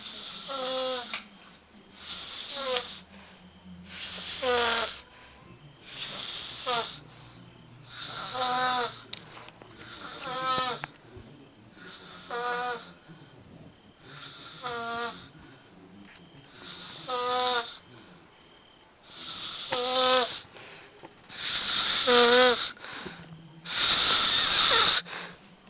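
A man snoring in his sleep, about one snore every two seconds. Each snore carries a wavering, buzzing pitch, and the last two are the loudest.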